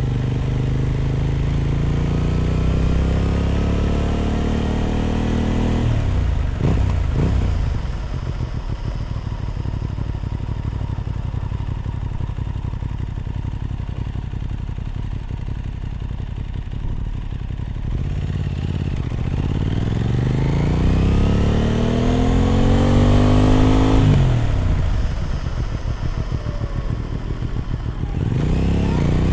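Aprilia RS 660 parallel-twin engine running through an SC Project exhaust under way. Revs climb for the first several seconds, then fall, and the engine holds a lower steady pitch. Revs rise again about twenty seconds in, drop near the end, and start climbing once more.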